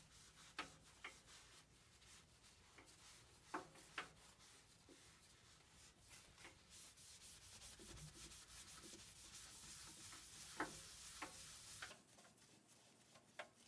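Cloth rubbing stain into a turned mahogany table leg. The wiping is faint with a few light ticks, grows stronger about halfway through, and stops shortly before the end.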